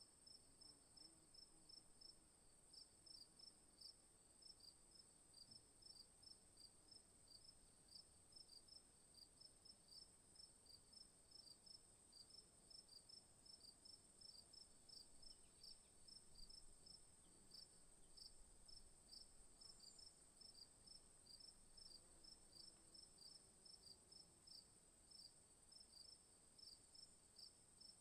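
Faint chorus of bush insects, crickets among them: one steady high-pitched trill runs on without a break, while short chirps repeat evenly about twice a second.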